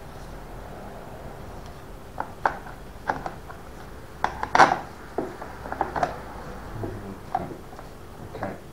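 Irregular clicks, taps and knocks of plastic and metal parts as an electric chainsaw is handled and fitted together during assembly, around its chain, guide bar and plastic side cover. The loudest knock comes about halfway through.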